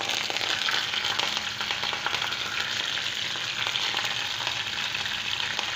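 Sliced green chillies frying in hot oil with cumin seeds, mustard seeds and dried red chillies, a steady sizzle full of fine crackles: the tempering (tadka) stage of an Indian stir-fry.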